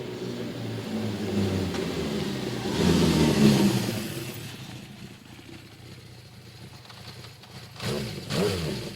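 Motorcycle engine running and getting louder to a peak about three seconds in, then fading away. Near the end come a couple of short revs that rise and fall in pitch.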